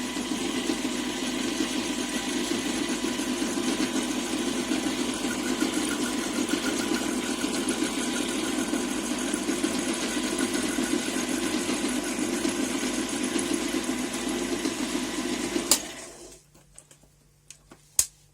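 Old lathe running under power, its motor and gearing giving a steady mechanical hum. After about sixteen seconds it is switched off with a click and quickly runs down to quiet, followed by one more sharp click near the end.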